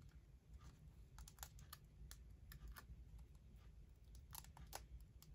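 Faint, scattered light clicks and taps of a clear plastic stamp sheet being handled in the fingers, over near silence.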